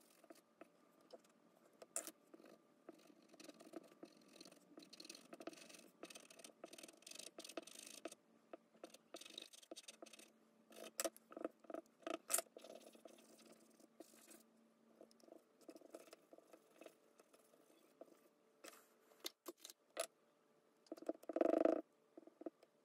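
Charcoal pencil and a paper blending stump scratching and rubbing on drawing paper in many short, uneven strokes. Near the end comes a louder, brief rub as fingers smudge the charcoal.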